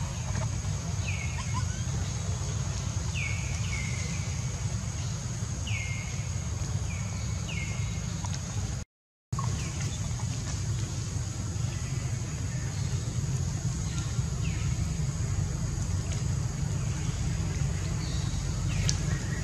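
Outdoor ambience: a series of short chirps, each falling in pitch, repeating over the first several seconds and fainter later, over a steady low rumble and a steady high hiss. The sound cuts out briefly about nine seconds in.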